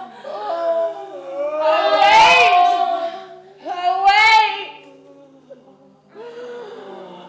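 Several voices wailing together in long, sliding, pitched cries of lament, with two loud cries that rise and fall about two and four seconds in.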